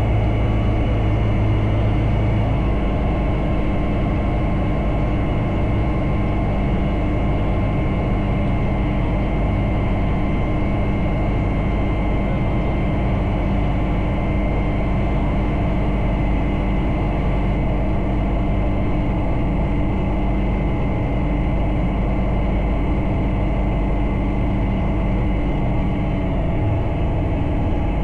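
Bristell Classic light aircraft's Rotax 912 flat-four engine running steadily at low power after landing, with propeller and airframe noise. The engine note shifts slightly about two seconds in and again near the end.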